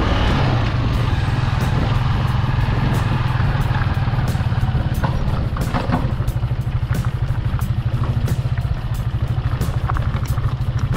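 A motor vehicle's engine running steadily, a low pulsing drone, with scattered light clicks.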